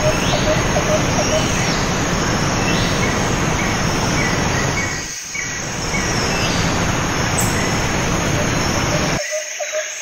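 Fast mountain stream rushing and splashing down rocky cascades, a steady wash of water noise, with birds chirping over it in short repeated calls. The water sound dips briefly about halfway through and cuts off near the end, leaving only the bird calls.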